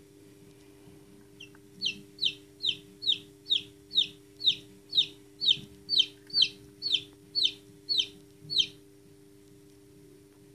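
Newly hatched chick peeping: about fifteen short, high peeps, each falling in pitch, at roughly two a second, starting about a second and a half in and stopping near the end. A faint steady low hum runs underneath.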